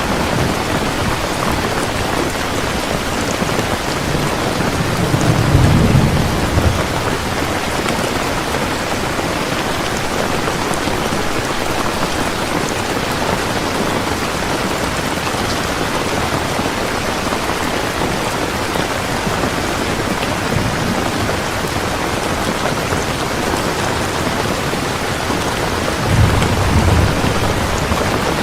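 Steady rain falling, with two low rumbles of thunder, one about five seconds in and one near the end.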